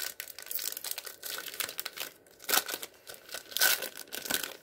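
Foil wrapper of a trading card pack crinkling and tearing as it is ripped open by hand, in irregular crackles with a few louder ones past the middle.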